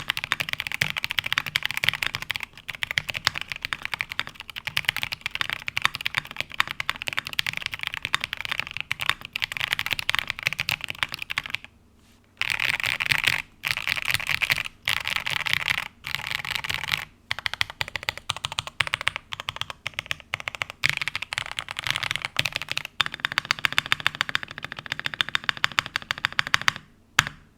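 Typing on an Iterkeebs TINT60 custom mechanical keyboard: a fast, steady stream of keystroke clacks. The typing pauses briefly about twelve seconds in and stops near the end.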